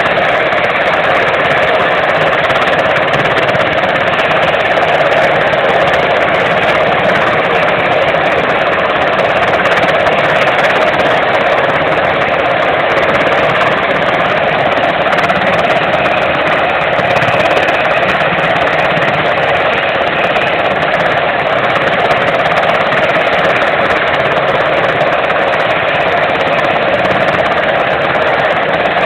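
US Navy Sikorsky MH-60 Seahawk helicopter running on the ground with its main rotor turning: steady, loud turbine and rotor noise.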